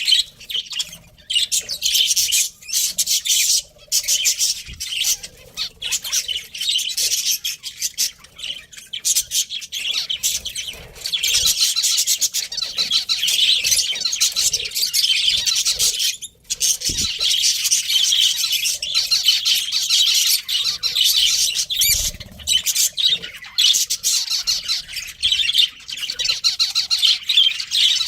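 Budgerigars chirping and chattering in a continuous, rapid warble, with occasional squawks; the chatter breaks off briefly about two thirds of the way through.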